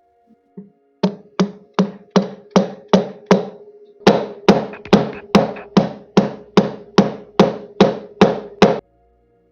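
Hammer blows at an even pace of about three a second: seven strikes, a short pause, then about a dozen harder ones.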